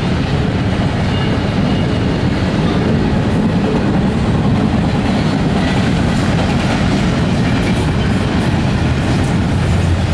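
Double-stack intermodal container well cars rolling past, a steady, loud rumble of steel wheels on the rails.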